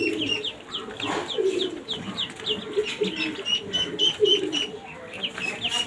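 Ducklings peeping: a fast run of short, high, downward-sliding peeps, about three a second, changing to shorter level peeps about halfway through, with lower calls underneath.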